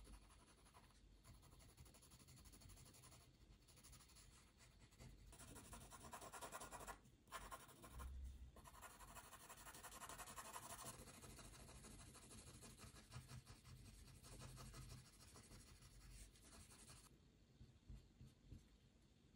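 Faint pencil strokes scratching on paper in a run of quick strokes, stronger in the middle with a couple of brief breaks where the pencil lifts.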